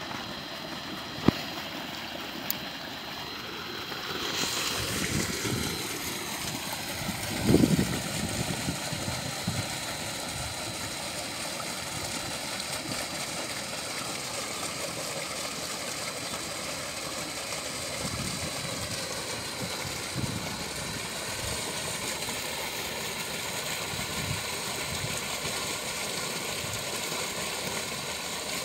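Steady rushing of shallow water tumbling over a small weir or rapids, with a sharp click early on and a louder low bump about seven and a half seconds in.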